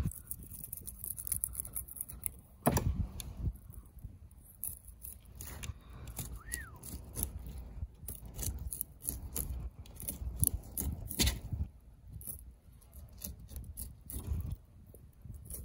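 Fillet knife cutting a queen snapper on a cutting board: irregular short scrapes and crisp ticks as the blade works through the fish's large scales and along the bones. Louder scrapes come about three seconds in and again past the middle.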